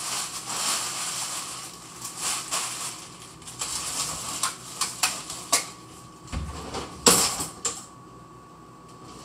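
Kitchen items clattering and knocking together as someone rummages through them, over a rustling hiss, with a loud knock about seven seconds in.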